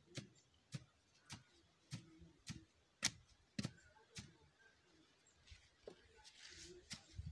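A wooden stick tamping sawdust down into a metal tin stove, a sharp knock about twice a second. The sawdust is being packed hard so that it burns slowly.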